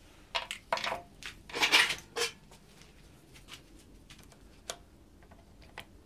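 Small steel parts of a BMW VANOS piston assembly clinking and clattering as they are handled in a bench vise: several sharp metal clicks and a louder scraping clatter in the first two seconds, then a few faint ticks.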